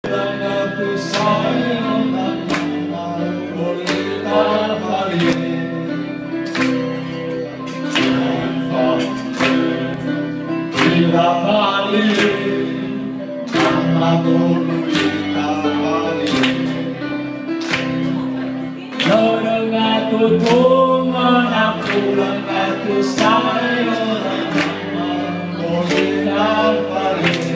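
A Timorese song performed live: men singing into microphones over electric guitar and held bass notes, with a steady beat of sharp strikes.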